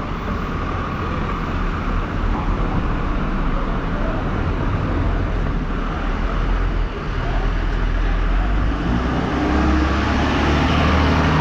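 Street traffic noise, with a delivery truck's engine coming closer and growing louder from about eight seconds in.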